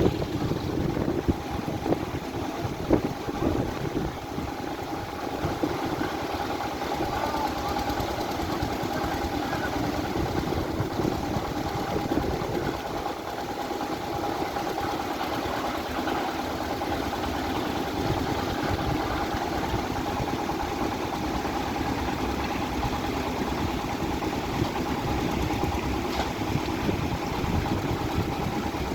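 An engine or motor running steadily, with a constant hum.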